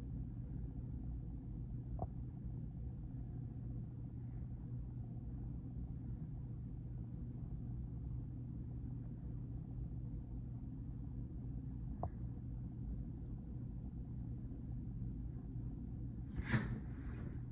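Steady low rumble of a passing freight train, muffled through a closed window. A couple of faint ticks are heard, and the phone rustles as it is handled near the end.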